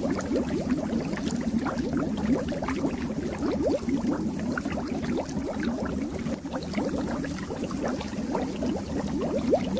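Aquarium water bubbling steadily, a dense run of many small bubbles one after another.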